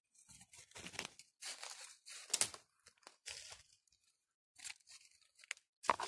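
Irregular rustling and crunching of dry forest-floor leaf litter, with a few sharp snaps or clicks near the end.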